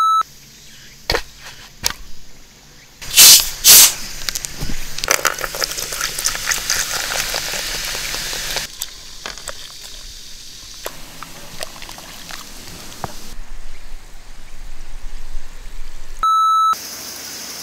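A short beep tone, then two loud hisses about three seconds in, followed by Coca-Cola pouring over a slab of raw pork belly in a metal bowl and fizzing for several seconds. The fizz goes on more quietly, with small crackles, and another short beep comes near the end.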